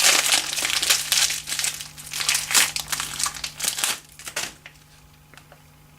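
Packaging crinkling and rustling in quick irregular handfuls as a newly bought fly cutter is unwrapped by hand, stopping about four and a half seconds in.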